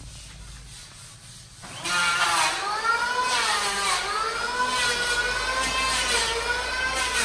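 A low hum, then about two seconds in a power tool starts up and runs with a loud whine whose pitch dips and recovers again and again as it is loaded.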